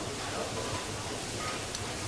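Steady hiss of kitchen background noise, with a faint click near the end.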